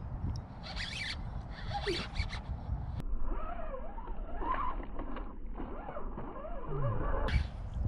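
Shimano fishing reel cranking in line in short raspy bursts as a small largemouth bass is brought in, with wind rumbling on the microphone.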